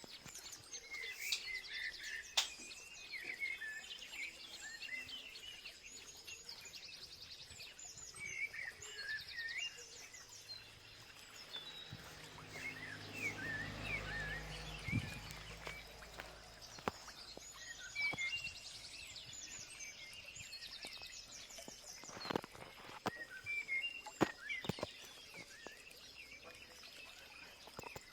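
Several birds chirping and trilling, with short calls throughout over a steady high tone. A low rumble swells and fades midway, and a few sharp clicks come near the end.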